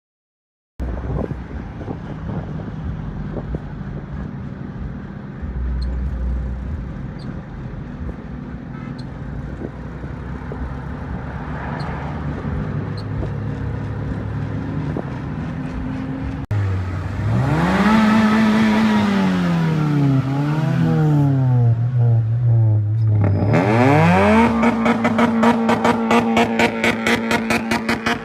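Car engine running steadily, then revved several times with its pitch rising and falling. Near the end it is held at high revs with a fast, even pulsing.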